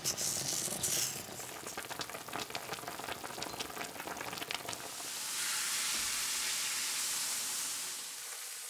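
Lamb shanks frying in a steel pot, browning in hot fat: a few seconds of crackling and popping, then a steady sizzle about five seconds in that fades near the end.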